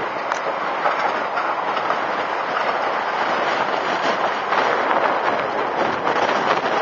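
CAT M315C wheeled excavator running and moving over dirt and gravel, with a steady clatter of loose metal parts and stones, a little louder after about four seconds.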